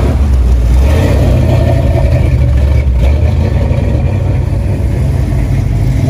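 Engine exhaust of classic Chevrolet trucks, a 1960s Chevrolet Suburban and then a late-1960s C10 pickup, rolling slowly past: a loud, steady low rumble with no hard revving.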